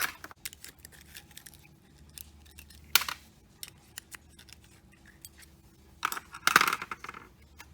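Small metal parts clicking and clinking as they are handled and set down: scattered light clicks, one sharp clink about three seconds in, and a short burst of clatter near the end.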